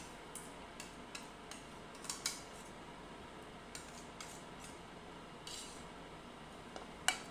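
Wire whisk scraping and tapping against the inside and rim of a metal saucepan, scraping out the last of a thick custard. Light, irregular metallic clicks and scrapes, with a louder tap about two seconds in and another near the end.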